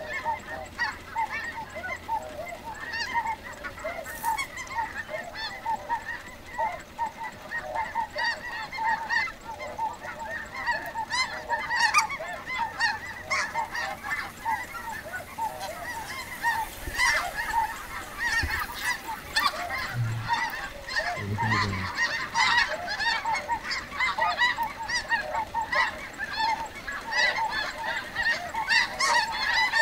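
A huge flock of snow geese calling overhead: a constant din of many overlapping high honks and yelps.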